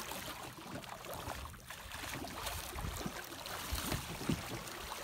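Water splashing beside a boat's hull as a hooked smooth-hound thrashes at the surface, with a few short, sharper splashes near the end.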